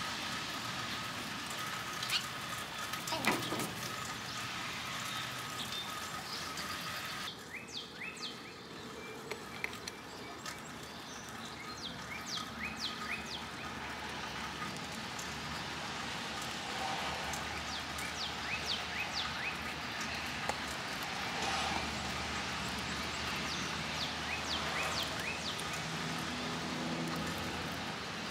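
Eastern gray squirrel making many short, sharp sounds over its food, a food-guarding noise made because it doesn't want to share. Steady outdoor background noise runs underneath.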